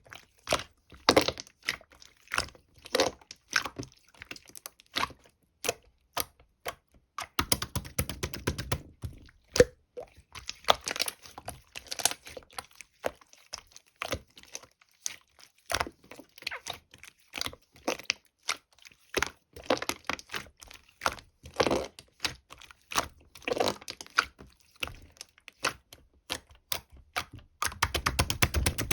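Irregular sharp clicks and taps, a few a second, with short bursts of crinkly rustling twice.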